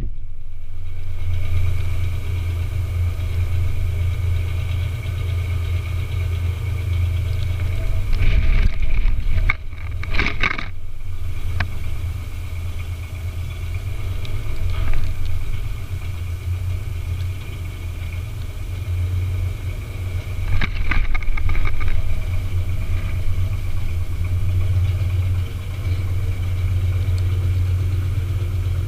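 Engine of a small yellow site dumper running steadily with a low drone and a faint high whine. It gets louder and rougher twice, about a third of the way in and again about two thirds in.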